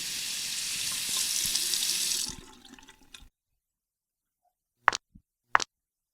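Water running from a tap into a sink for about two seconds, then tapering off and stopping, as when hands are washed. Three short sharp clicks follow near the end.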